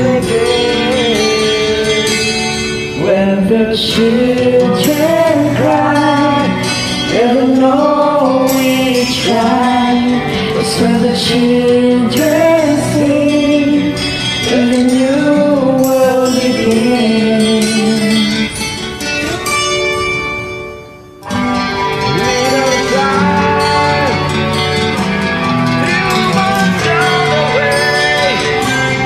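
Karaoke recording of a slow acoustic-guitar ballad with a voice singing the melody over the backing track. The music dips and breaks off briefly about two-thirds of the way through, then carries on.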